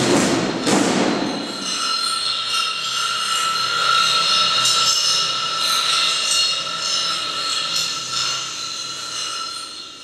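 The last strokes of a marching snare-drum ensemble ring out in the first second or so. Then comes steady audience applause, which fades near the end.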